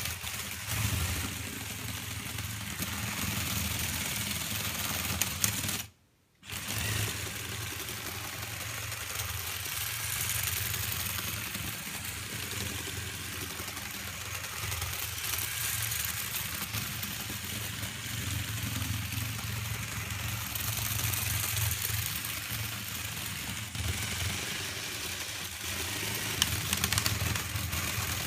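Remote-controlled LEGO Technic bulldozer's small electric motors and plastic gearing running steadily, a mechanical whir over a low hum. The sound drops out briefly about six seconds in.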